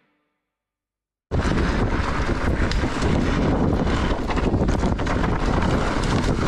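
After about a second of silence, wind buffeting a rider-mounted camera's microphone starts suddenly and runs loud while descending a mountain bike trail, mixed with frequent knocks and rattles of the bike over rough ground.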